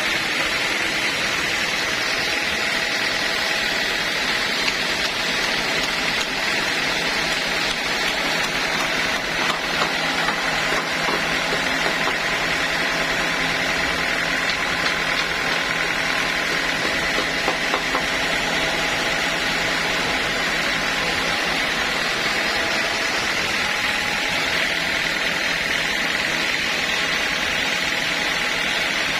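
Sawmill machinery running steadily, an even mechanical noise with a constant high whine that holds the same pitch throughout.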